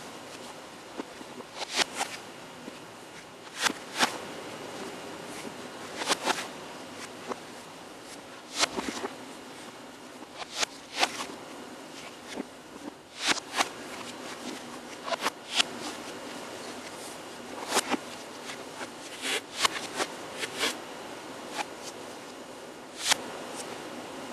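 Sharp, irregular knocks and slaps of a person dancing on a hard floor: shoe stomps and scuffs, with hand slaps, coming every second or so over a steady background hiss.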